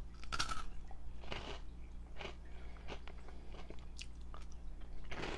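A person biting into and chewing crunchy Flamin' Hot Cheetos, with sharp crunches about once a second, the strongest about half a second in and again near the end.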